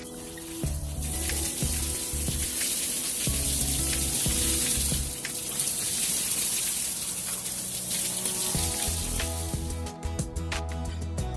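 A steady rushing hiss of running water starts about a second in and stops near the end, over background music with a repeating bass line.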